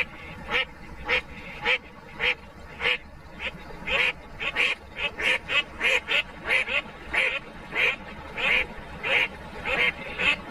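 A duck quacking over and over, short quacks about two a second, coming a little faster in the middle.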